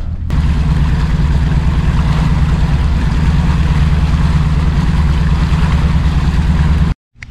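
Outboard motor on a bay boat running steadily at speed, a low drone mixed with the rush of water from the wake. It cuts off abruptly near the end.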